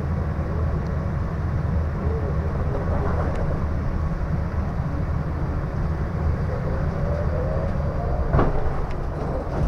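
Moscow Metro train pulling away, heard from inside the car: a steady low rumble of wheels and running gear, with a faint whine from the traction motors rising in pitch as the train gathers speed. A short sharp knock comes near the end.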